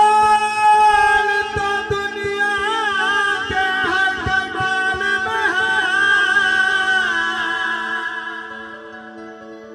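Male voice singing a naat in long, bending held notes, accompanied by tabla strokes and electronic keyboard over a steady low drone. The singing fades out about eight seconds in, leaving the keyboard playing.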